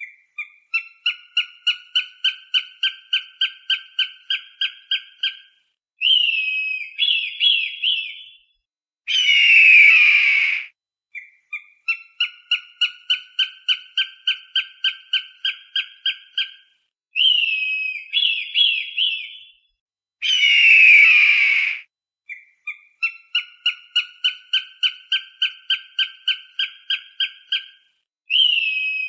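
Recorded hawk calls in a repeating cycle. A rapid chattering series of short notes, about four a second, lasts about five seconds. A few slurred down-sweeping calls follow, then a long harsh descending scream. The cycle runs about three times.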